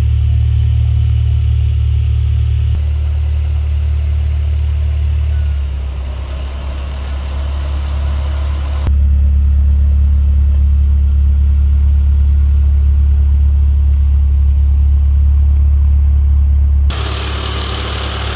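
Honda H23A 2.3-litre DOHC VTEC four-cylinder, fitted with a 70 mm throttle body, idling steadily. It is heard in turn from inside the cabin, as a strong low drone at the tailpipe, and over the open engine bay, where it is brighter and noisier, with abrupt changes between these sounds.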